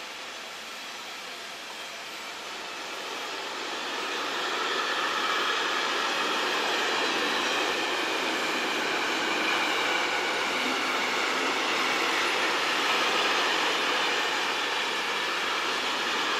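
Container flat wagons of a long freight train rolling past: a steady noise of steel wheels on the rails, growing louder about four seconds in.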